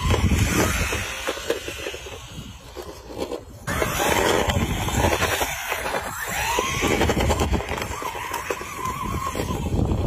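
Small toy remote-control car's electric motor whining as it drives, its pitch rising and falling with the throttle, over a steady low rumble.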